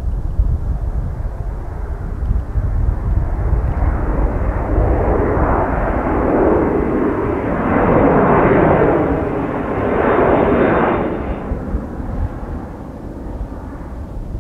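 Boeing 737-500 jet airliner passing overhead, the noise of its CFM56-3 turbofan engines swelling as it approaches, peaking about eight to eleven seconds in, then falling away quickly as it flies off.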